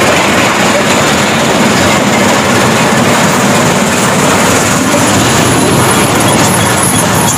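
Stone-crushing plant running: the crusher, screens and conveyor belts give a loud, steady machine noise.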